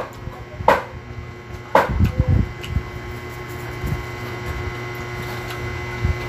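Two sharp knocks about a second apart, then a few soft bumps, over a steady low hum.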